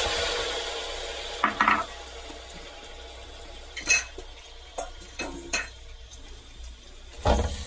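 Diced raw chicken tipped into hot oil in a metal paella pan, setting off a sizzle that starts suddenly and settles to a steady lower hiss as the meat begins to sear. A few short clinks and knocks against the pan break in along the way.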